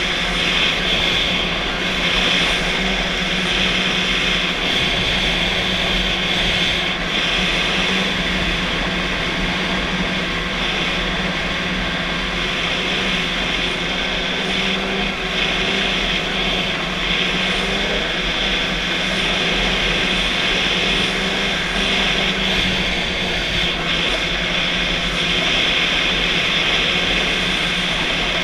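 Snowmobile engine and track running at a steady cruise, heard from on board: an even drone that holds its pitch, with a constant hiss over it.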